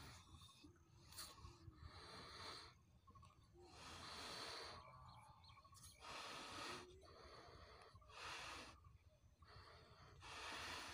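Faint breathy gusts of air as two people blow up balloons by mouth, about one puff every two seconds.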